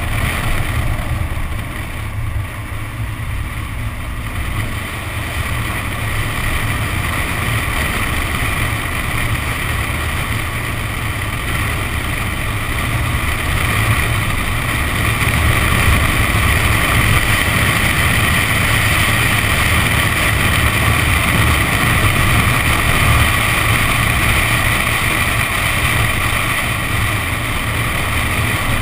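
Nissan 370Z's 3.7-litre V6 running under load, with its tyres throwing up water on a flooded track surface and wind on an outside-mounted camera; a steady noise that gets somewhat louder about halfway through.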